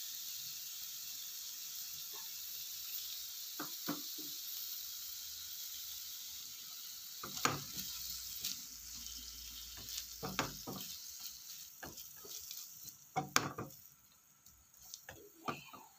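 Shrimp sizzling in a nonstick frying pan, a steady hiss, with a plastic spatula knocking and scraping against the pan several times as it is stirred. The sizzle dies down near the end.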